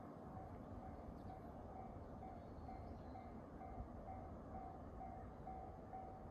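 Railway level-crossing warning bell ringing in an even repeating beat, about two dings a second, the signal that a train is approaching, over a faint low rumble.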